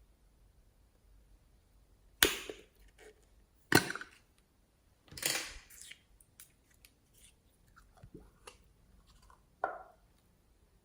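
Slime being squeezed and pressed by hand, giving several sharp pops: three loud ones in the first half and another near the end, with smaller clicks and crackles between them.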